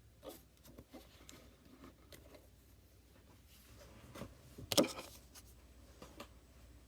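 Faint rustling, sliding and small taps of Pokémon trading cards being handled, with one louder short sound nearly five seconds in.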